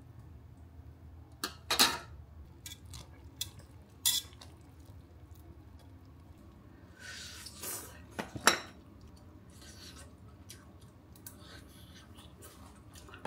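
Dishes and cutlery clinking in a small room: scattered sharp clinks and knocks, the loudest about two seconds in and again about eight and a half seconds in, with a short noisy swell just before the second.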